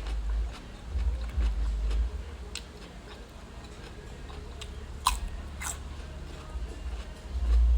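Close-up chewing and eating sounds of a person eating a bowl of rice noodles, with uneven low thumps and light clicks. Two sharper clicks come about five seconds in.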